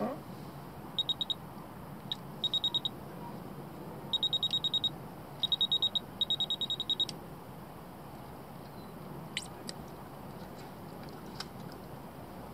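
Electronic fishing bite alarm on a rod pod sounding rapid runs of high beeps, six short bursts starting about a second in and ending about seven seconds in, as line is drawn over its sensor. A few faint clicks follow near the end.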